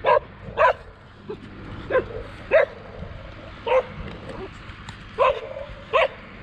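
A tan short-haired dog barking at a passing bicycle, about seven short, sharp barks at uneven intervals as it chases after the rider.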